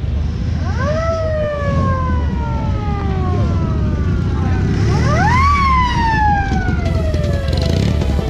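A siren wailing twice: each wail rises quickly and then winds slowly down in pitch. Under it runs a steady low rumble.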